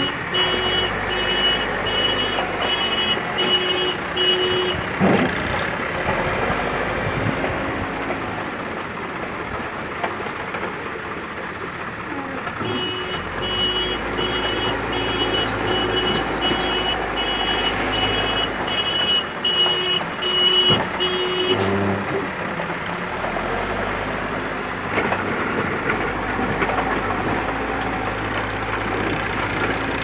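JCB backhoe loader's diesel engine running under work, with its reversing alarm beeping evenly, about one and a half beeps a second, in runs: at the start, for about eight seconds in the middle, and again near the end.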